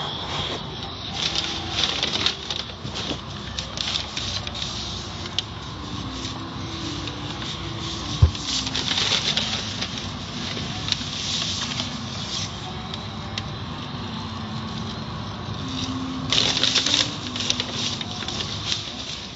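Automatic car wash heard from inside the car: water spray and spinning cloth brushes pattering and slapping against the body and windows, swelling louder several times, with a single thump about eight seconds in.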